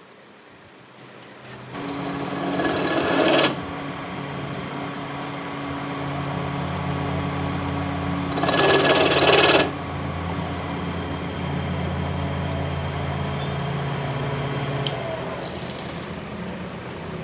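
A workshop machine starts up about a second and a half in and runs with a steady hum. Two loud rushing bursts of noise, the first about a second and a half long and the second about one second, come some six seconds apart.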